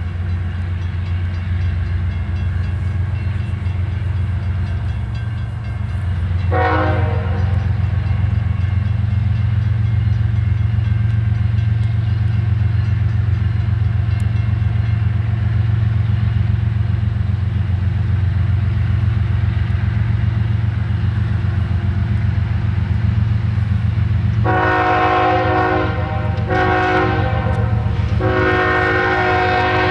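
Diesel freight locomotive running with a steady low engine drone, with a short horn blast about seven seconds in. Near the end the horn sounds a longer blast, a short one, then another long one.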